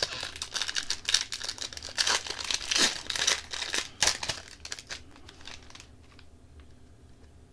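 Hockey card pack wrapper being torn open and crinkled, a dense run of crackling for about five seconds that then dies down to a few faint ticks.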